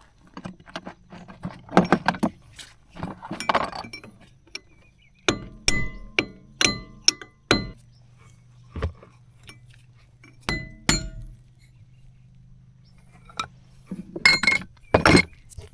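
Sharp metallic clinks and taps, several ringing briefly, as a tool works the grease cap off a trailer wheel hub, with scraping and handling noise in between.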